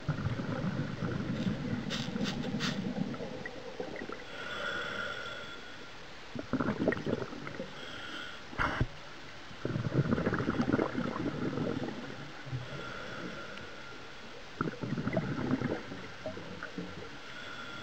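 Scuba regulator breathing heard underwater: rumbling bursts of exhaled bubbles lasting a second or two, alternating with the thinner hiss of each inhale through the regulator, a breath roughly every four to five seconds.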